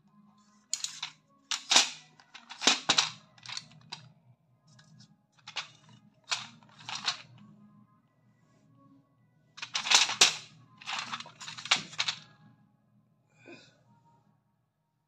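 Foil-backed blister strip of tablets crinkling and clicking as it is handled, in a string of short, sharp rustles with pauses between them, busiest around ten seconds in.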